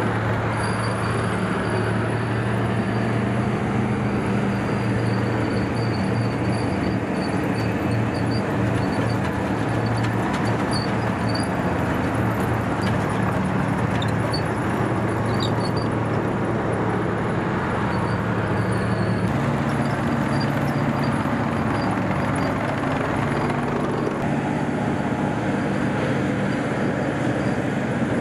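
Tank engine running steadily on the move, a continuous heavy drone whose pitch shifts once about two-thirds of the way through.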